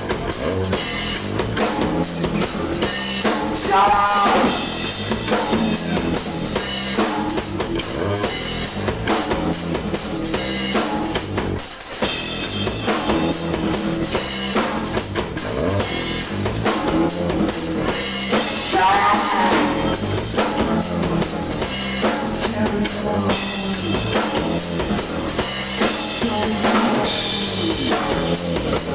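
Live emo band playing loudly, led by a drum kit with bass drum and snare, over bass and electric guitars. A short rising guitar figure cuts through about four seconds in and again near two-thirds of the way.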